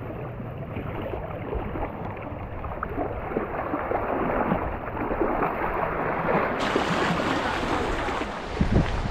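Fast, shallow river water rushing and splashing right beside a camera held at the surface. It sounds muffled at first, then suddenly turns brighter and fuller about two-thirds of the way through.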